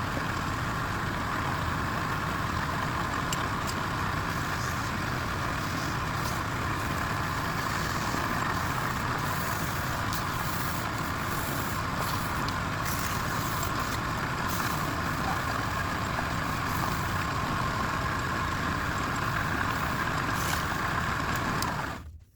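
A machine running steadily with a constant rushing hiss, which cuts off abruptly near the end.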